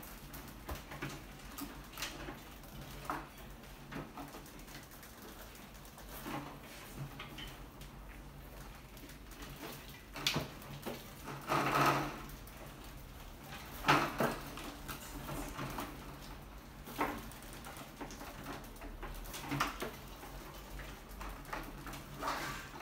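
Rats scrambling over a wire-mesh-topped glass-tank trap: irregular scratches, taps and rattles of claws on mesh, glass and wood, with a longer rattling scrabble about twelve seconds in and a sharp knock about two seconds later.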